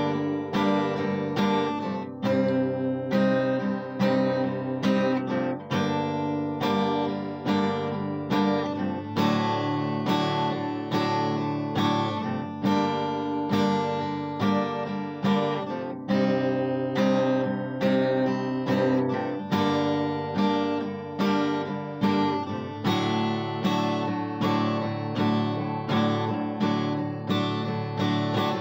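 Acoustic guitar played solo and instrumentally, chords strummed in a steady repeating rhythm.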